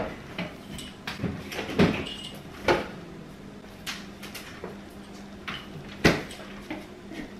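Refrigerator door opened and things handled at it: a string of sharp knocks and clunks, the loudest about six seconds in, over a low steady hum.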